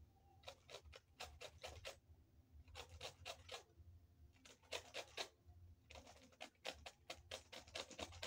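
Lemon peel being rubbed against the fine side of a metal hand grater to make zest: faint, quick runs of short rasping strokes, coming in four bursts with brief pauses between.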